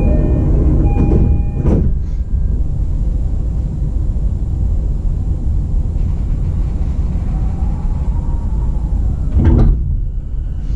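E233-series train's two-tone door-closing chime sounding twice, then the doors shutting with a knock about two seconds in. A low steady rumble follows, with a heavy clunk near the end.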